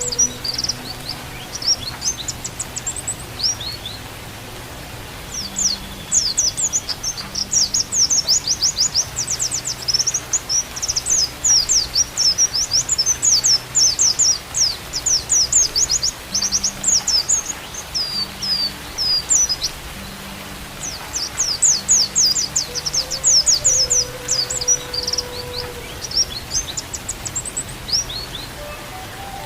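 White-eye (pleci) song: long runs of rapid, high, down-sweeping chirps that pause briefly a few times. Underneath is a steady hiss of rain, and a faint held flute note comes in near the end.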